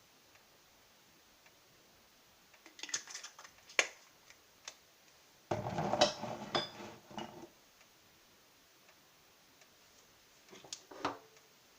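Kitchen handling sounds: scattered clicks and knocks of utensils and containers, with a longer, louder clatter about halfway through.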